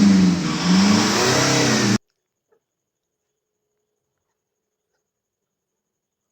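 Nissan Patrol Y61's ZD30 four-cylinder diesel engine running, its pitch rising and falling again and again as it is revved, until the sound cuts off suddenly about two seconds in, followed by silence.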